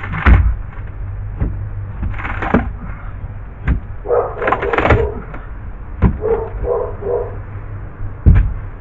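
Pry bar knocking and levering at a boat's cut floorboard. Sharp knocks come a few times, the loudest just after the start and near the end, with short pitched squeaks between them.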